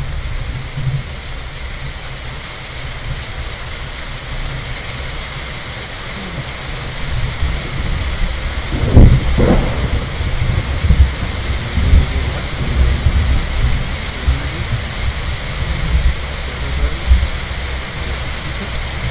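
Steady rain falling, with low rolling thunder rumbling in from about seven seconds in, loudest around the middle.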